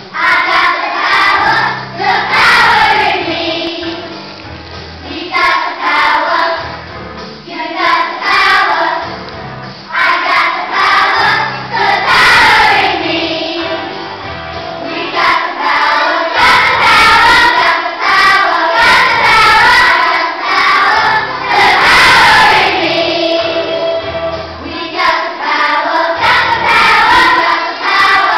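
Children's school choir singing a song together, phrase after phrase with short breaks between them.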